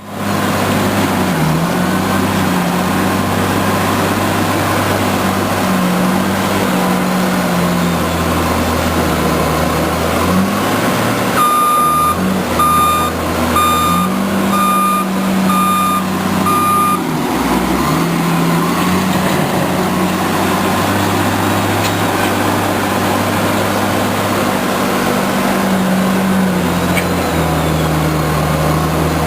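Heavy construction machinery's diesel engine running, its pitch rising and falling as it works. Midway, a reversing alarm beeps six times, about a second apart.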